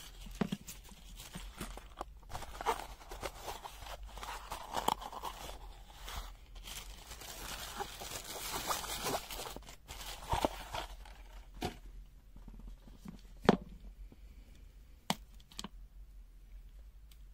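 Packaging being handled: crinkling and tearing rustles mixed with small clicks, then quieter with a few sharp taps near the end.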